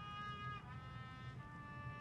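A single trumpet playing slow, long held notes that slide and step down in pitch.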